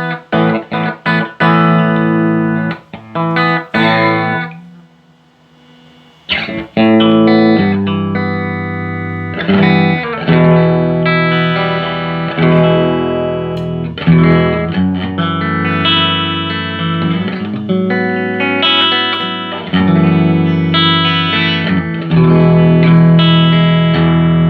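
Electric guitar played through a Fender Hot Rod Deluxe tube combo amp with a fresh pair of 6L6GC power tubes, the amp working again after repair. Short chopped chords come first, then a brief quiet pause about five seconds in, then ringing, sustained chords and single notes.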